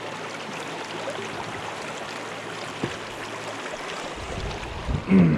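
Steady rush of flowing river water, with a low rumble joining about four seconds in.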